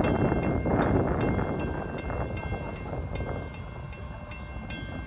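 Level crossing warning bell ringing in steady, evenly spaced strokes, about two a second, each stroke ringing on, as the crossing's flashing lights run. Under it a low rumble fades over the first few seconds.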